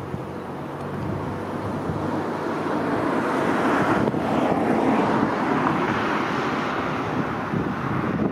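Class 66 diesel-electric freight locomotive approaching with its EMD two-stroke V12 diesel engine running. Its low engine note is joined by wheel and rail noise, and the sound grows louder over the first few seconds as it nears.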